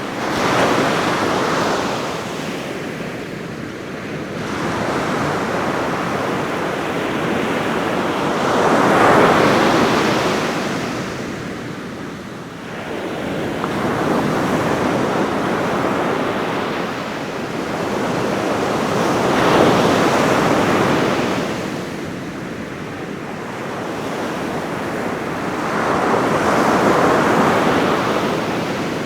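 Ocean surf on a beach: waves breaking and washing in one after another. The noise swells about five times and ebbs between, over a steady wash that never stops.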